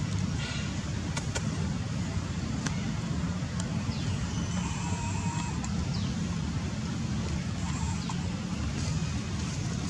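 Steady low background rumble, with a few faint short high chirps and clicks over it.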